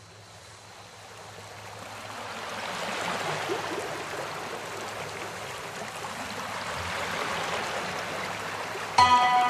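Steady rushing noise of heavy rain and water on a flooded road, fading in from near silence over the first few seconds. Music with held notes starts just before the end.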